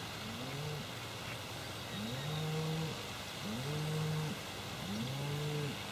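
Low mooing animal calls: a faint one near the start, then three in a row about a second and a half apart, each short, rising at the onset and then held level.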